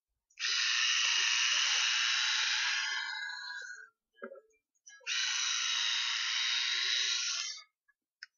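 Instyler rotating hot-iron styler with its spinning brush running through a section of straightened hair, in two passes of about three seconds each with a short gap between.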